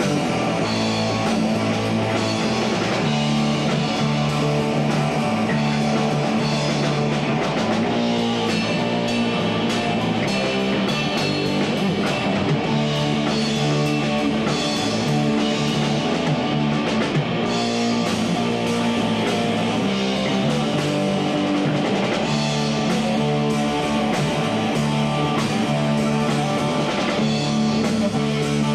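Live rock band of electric guitar, electric bass and drum kit playing a song through amplifiers.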